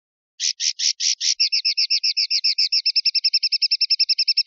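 Common linnet vocalising: a series of short repeated high notes, starting about half a second in at about five a second and speeding up into a fast, even trill of about ten a second.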